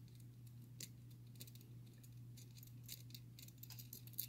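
Faint, irregular small metallic clicks and rattles of a lock pick working the pin stack inside a six-pin Carbine padlock, probing pins one at a time, over a steady low hum.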